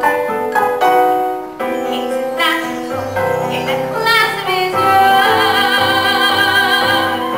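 A woman singing a musical-theatre ballad over instrumental accompaniment. About two thirds of the way through she settles into a long held note with vibrato.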